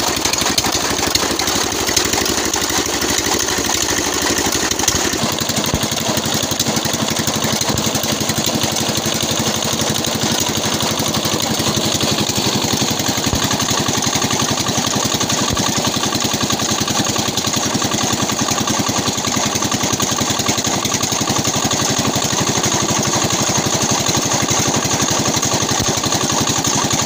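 4 hp Swan 'Peter' single-cylinder diesel engine running steadily at speed with a rapid, even knocking beat, belt-driving a chaff cutter that is chopping green fodder.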